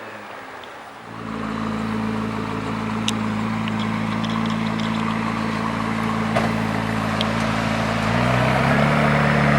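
McLaren P1's twin-turbo V8 coming in about a second in and then idling steadily, with the idle stepping up in pitch near the end.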